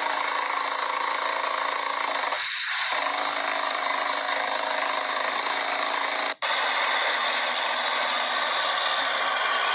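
Air borewell drilling rig at work: a loud, steady, hissing rush of compressed-air drilling noise, strongest in the high range. It cuts out for an instant about six seconds in.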